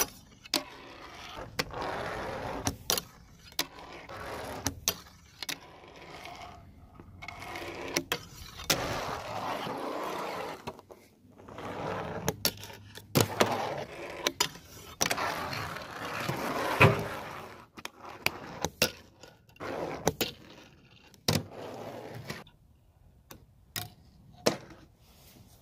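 Fingerboard tricks: the small wheels rolling and scraping across ramps and a flat sign surface, broken by many sharp clicks and clacks as the tiny deck pops, lands and hits rails and ledges.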